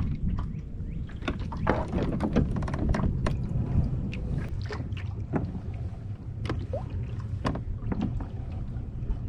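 Low rumble of wind on the microphone from a fishing kayak on open water, with scattered short clicks and knocks throughout.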